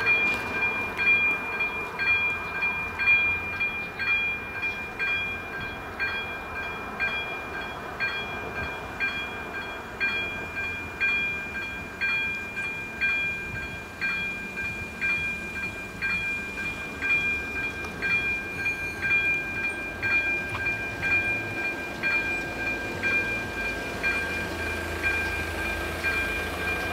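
A level crossing's electronic warning bell ringing in a steady, even rhythm of high chiming strokes. It is the signal that the crossing has been activated for an approaching train, ahead of the barriers lowering.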